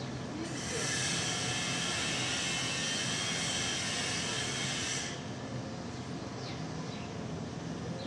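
Outdoor ambience picked up by a NEEWER CM22 wireless lavalier mic in mono mode, with its low-cut filter on and a furry windscreen fitted: a steady hiss over a low, even hum of distant machinery. The upper hiss drops away about five seconds in.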